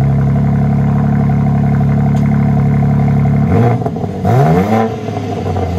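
BMW M4's twin-turbo 3.0-litre inline-six revved through a straight-piped exhaust: high-flow cats, rear muffler deleted, active exhaust flaps fully open. The revs are held steady for about three and a half seconds, then let off with quick rises and falls in pitch, settling to a lower steady note near the end.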